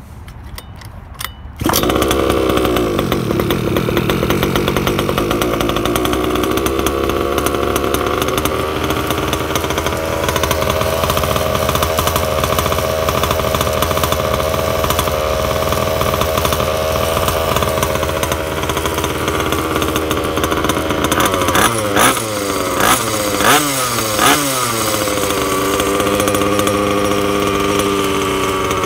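Goped scooter's 29cc two-stroke engine with a DDM expansion pipe. A few clicks, then the engine catches about a second and a half in and runs steadily. Near the end it gives several quick revs up and down, then settles back to a steady run.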